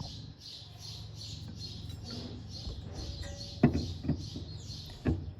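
A bird chirping over and over, about three high chirps a second, over a low steady hum. Two sharp knocks, about three and a half and five seconds in, are the loudest sounds.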